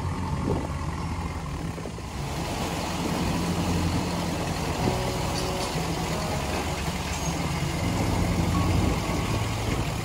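Narrowboat's diesel engine running steadily at low revs, a low even hum that grows a little louder near the end as the boat draws close. A hiss of noise rises behind it about two seconds in.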